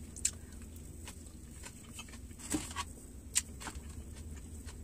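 Mouth smacking and chewing while eating fried chicken wings: a handful of short, sharp wet smacks spread across the seconds, the loudest about halfway through.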